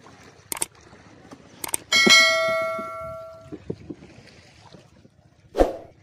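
Sound effects of a subscribe-button animation: two sharp mouse clicks, then a bright notification-bell ding about two seconds in that rings out and fades over about a second and a half. A dull thump follows near the end.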